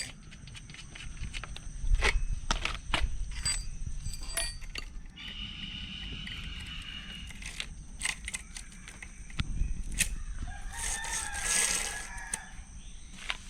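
A rooster crowing once near the end, a drawn-out call of about two seconds. Scattered sharp clicks and knocks are heard before it over a low outdoor rumble.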